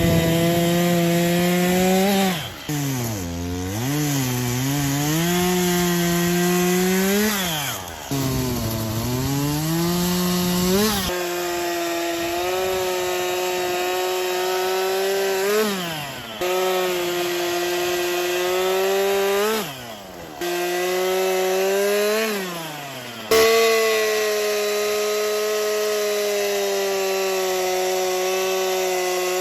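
Stihl two-stroke chainsaw bucking logs into rounds, the engine held at high revs. Its pitch sags and wavers as the chain bites into the wood and climbs back up several times, then runs steady near the end.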